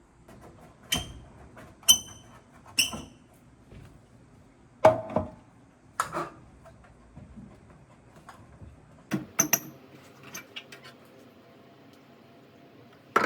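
Household objects being handled and set down: three clinks with a short ringing tone in the first three seconds, then several duller knocks and a quick run of taps.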